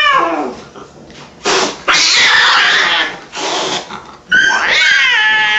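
Cat restrained in a net for an injection, yowling and hissing. A pitched cry trails off just after the start, a few toneless hisses come in the middle, and a long, loud, wavering yowl begins about four seconds in.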